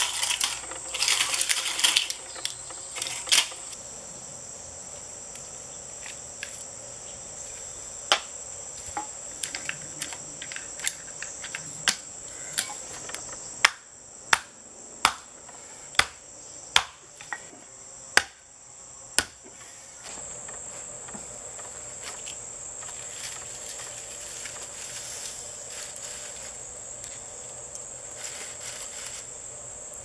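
Metal clipping and rustling of a microwave oven transformer's copper winding in the first few seconds. Then a hammer strikes the transformer's steel core about a dozen times, sharp single blows spread over roughly ten seconds, closest together toward the middle. A steady high-pitched insect chorus runs behind throughout.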